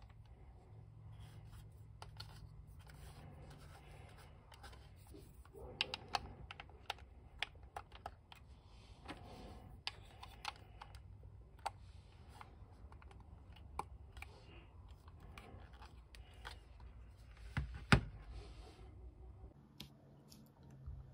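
Small hard-plastic toy parts being handled and pressed together: scattered light clicks and taps as a plastic torpedo is fitted to a toy boat's hull, with a sharper click about eighteen seconds in.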